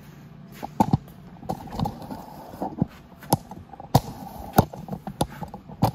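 Footsteps on a concrete floor: a string of sharp steps, roughly one every half second or so.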